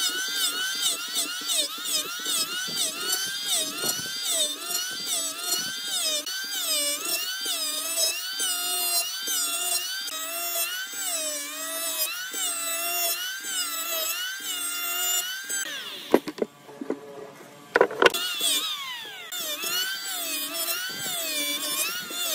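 Electric hand planer running and shaving a rough wooden beam, its motor whine dipping and rising over and over as the blades bite into the wood and free up. About three-quarters of the way through it briefly drops away, with a couple of sharp knocks, then runs again.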